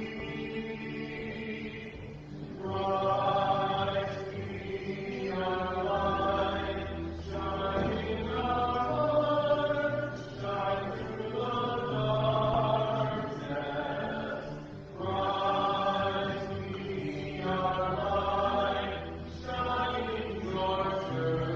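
A hymn sung slowly in phrases of a few seconds each, over held low accompaniment chords.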